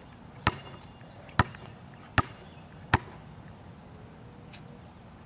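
Basketball bounced on asphalt, four sharp single bounces under a second apart, then a fainter tap about four and a half seconds in.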